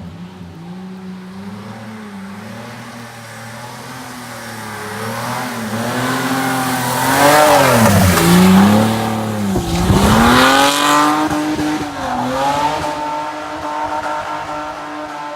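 BMW E30's M20 straight-six engine revving hard up and down through a drift, with a rush of tyre noise on the wet road. It is loudest in the middle, where the revs drop sharply and climb again twice.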